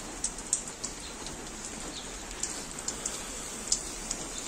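Rain falling: an even hiss with scattered sharp ticks of drops.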